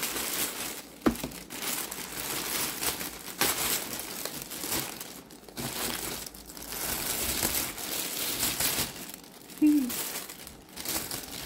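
Plastic poly mailer bag and bubble-wrapped packages crinkling and rustling as they are pulled out and handled, with a few sharp crackles. A brief pitched sound comes near the end.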